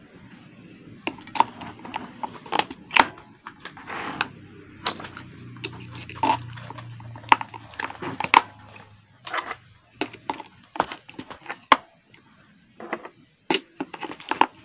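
AA batteries being fitted into a plastic toy's battery compartment: a long, irregular run of sharp clicks and knocks as the cells are handled, tapped against the plastic and pressed onto the spring contacts.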